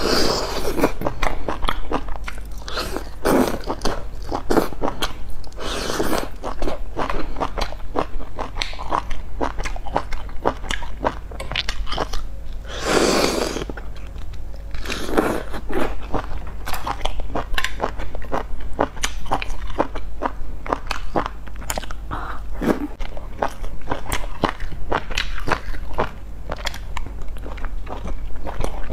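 Close-miked eating of spicy malatang: steady wet chewing and biting with many short smacking clicks, broken by several louder slurps, the longest about halfway through.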